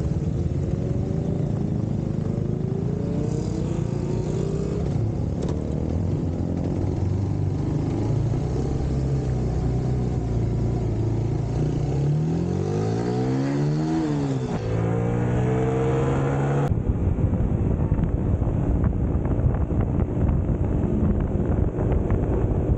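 Motorcycle engine running, revving up and falling back about twelve to fourteen seconds in. After an abrupt cut, the sound of riding at speed with wind rushing over the microphone.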